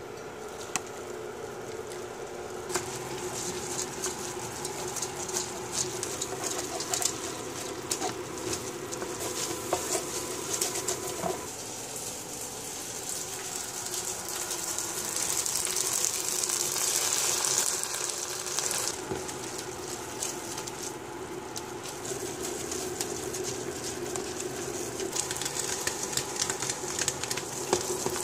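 Rice sizzling and bubbling in a hot pot as boiling bouillon water is ladled in, with a wooden spoon stirring and clicking against the pot. The sizzle grows louder about halfway through as more broth goes in.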